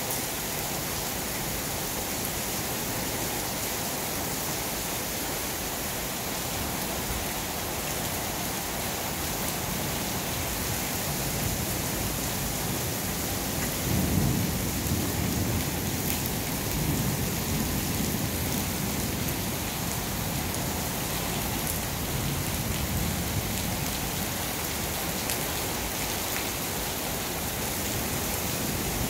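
Heavy rain falling steadily during a thunderstorm, with a low roll of thunder building about halfway through and rumbling on for several seconds.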